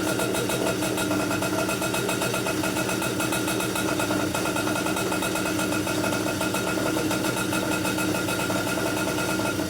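Komet K30 single-cylinder two-stroke rotary-valve kart engine, rebuilt with a stroker crank and 55 mm piston, running steadily at an even speed during its piston break-in run.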